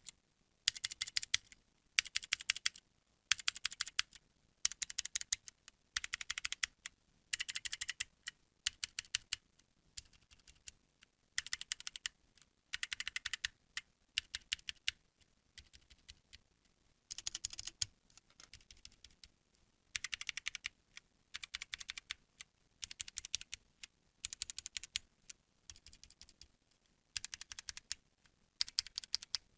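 Gamakay silent tactile mechanical keyboard switches pressed rapidly on a single key in short flurries, each flurry a quick run of soft clicks, repeating about every second and a half.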